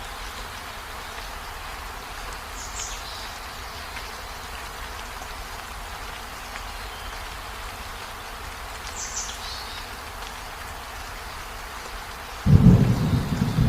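Steady rain, with a few short high bird chirps. Near the end a sudden loud, low rumble of thunder breaks in.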